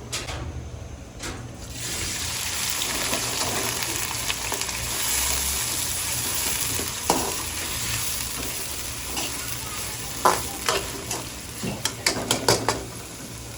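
Food frying in hot oil in a pan: a loud sizzle sets in about two seconds in and holds steady, then a spatula knocks and scrapes against the pan several times near the end.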